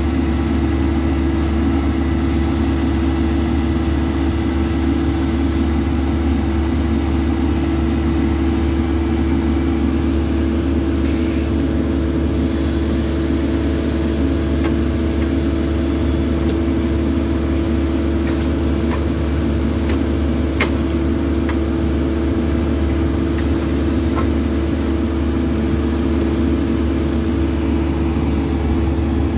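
Ditch Witch JT24 directional drill's diesel engine running steadily under load as it drives the drill rod, with a few faint clicks.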